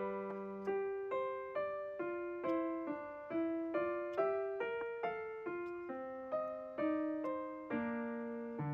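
Background music: a solo piano playing a gentle melody of single notes, about two a second, each struck and left to fade.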